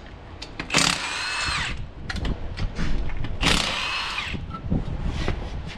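Impact wrench running in two bursts of about a second each, spinning lug nuts off a wheel, its motor whine rising and falling; light clicks and clanks come between the bursts.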